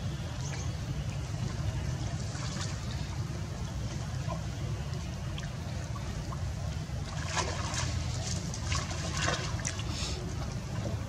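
Water splashing and trickling as macaques swim, with a run of splashes about seven to ten seconds in, over a steady low rumble.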